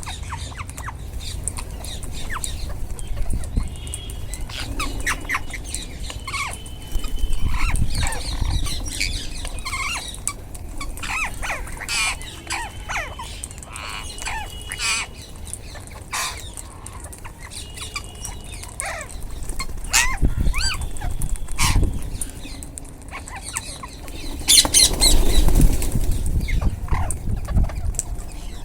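A flock of Indian ringneck parrots (rose-ringed parakeets) calling with many short chirps and squawks, with several louder bursts of wing flapping, the biggest about three-quarters of the way through.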